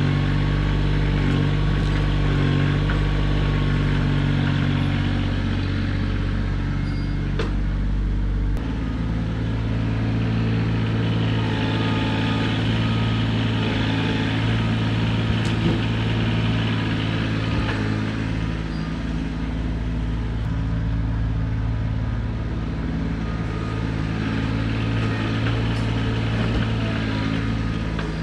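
Kioti tractor's diesel engine running steadily, its engine note changing about eight seconds in, with a few light clicks over it.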